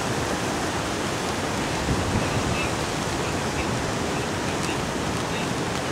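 Steady rushing noise of hurricane-driven wind and heavy breaking surf.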